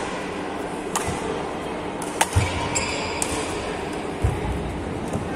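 Badminton rally: two sharp racket-on-shuttlecock hits a little over a second apart, with dull thuds of footwork on the court, in a large echoing hall.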